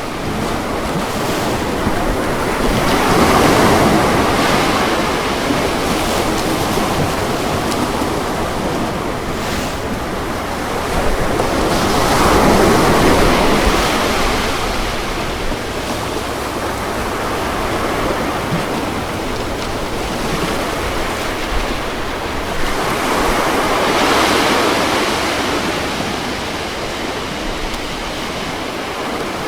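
Ocean waves breaking on a beach, a continuous wash of surf that swells three times as waves come in, with some wind.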